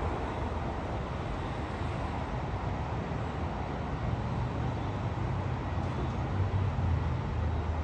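Steady low rumble of distant vehicles, swelling slightly a few seconds in.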